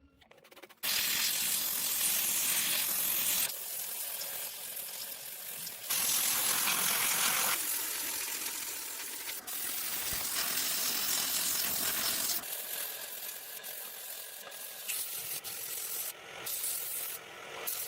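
Scraping and rubbing on the scooter's sheet-metal body during bodywork, heard as a run of short takes that start and stop abruptly.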